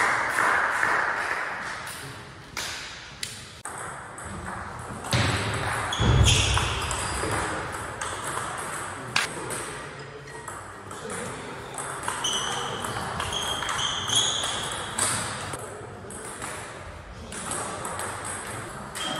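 Table tennis ball being struck back and forth in a rally, a series of sharp clicks off the rubber-faced paddles and the table.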